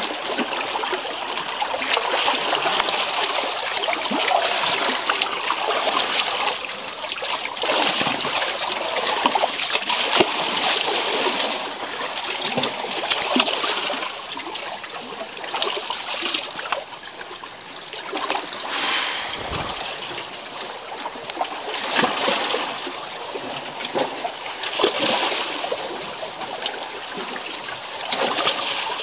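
Water splashing and trickling among rocks in a continuous rushing hiss that swells and eases every few seconds.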